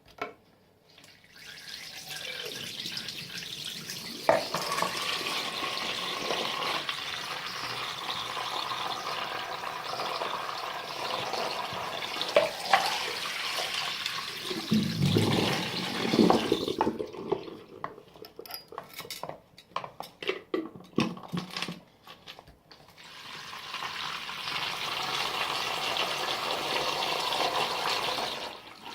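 Water running from a tap into a sink. Partway through, the flow gives way to several knocks and clatters before it runs steadily again.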